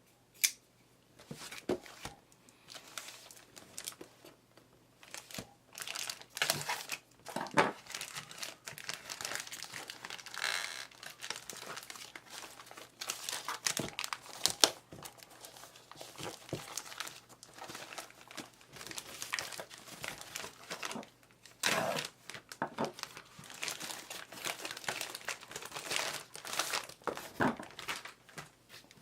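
Packaging being handled and unwrapped: irregular crinkling and rustling of wrapping material, with some tearing and sharp clicks and knocks from time to time.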